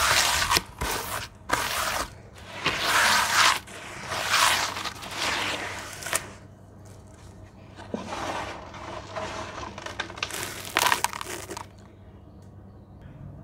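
Hands squelching and swishing through thick wet red clay slurry in a basin, in a string of wet, gritty surges. The surges stop near the end, leaving it quiet.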